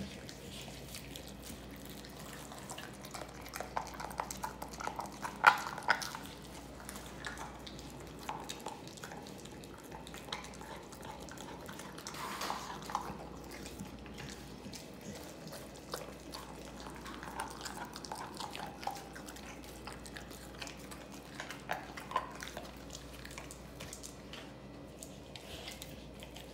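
American bully dog licking and nibbling at the skin of a raw turkey leg: scattered wet smacking and licking sounds in short spells, loudest about five to six seconds in.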